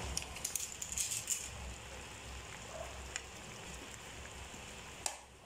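Beef mechado stew simmering in a pan: quick, irregular bubbling and crackling, busiest in the first second and a half and then fading to a soft hiss, with a couple of small clicks later on.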